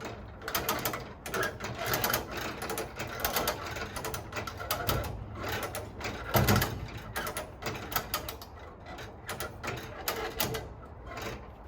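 Hand-operated lifting gear ratcheting and clicking in quick, uneven runs as the car body is raised off its frame.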